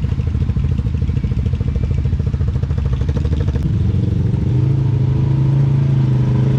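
Yamaha Grizzly ATV engine running at a fast, even low-rev pulse, then revving up about four seconds in and holding a steady higher pitch.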